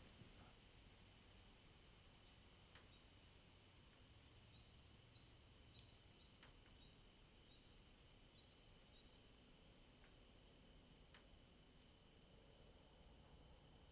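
Faint, steady chirping of crickets, a fast pulsing trill, with a few faint clicks scattered through it.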